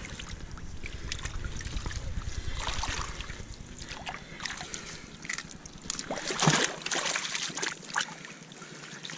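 Shallow seawater sloshing and trickling in a rock pool as hands grip and turn over a seaweed-covered rock, with small splashes and knocks. A low rumble runs under the first few seconds.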